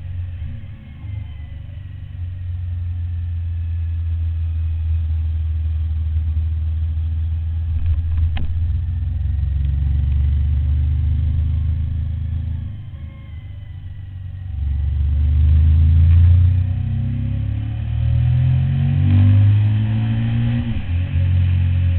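Suzuki SV1000's V-twin engine running at road speed. It holds steady, eases off briefly about two-thirds through, then pulls hard again with a rising pitch.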